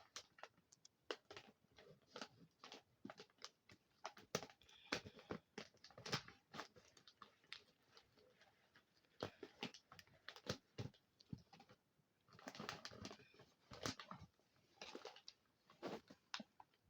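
A person chewing Goldfish Crisps, light and airy crackers: irregular crunches and clicks, with a couple of longer crunchy stretches about twelve and fifteen seconds in.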